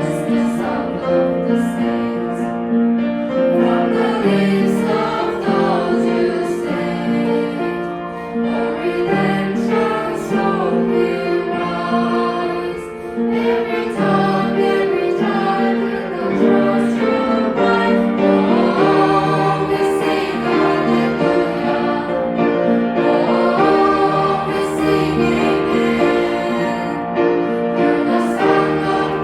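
Worship song sung by a choir of voices over piano accompaniment.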